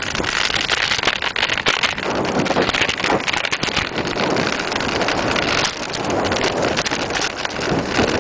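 Mountain bike rolling fast down a loose, stony dirt trail: tyres crunching over gravel and the bike clattering over bumps in many quick knocks. Heavy wind buffets the microphone throughout.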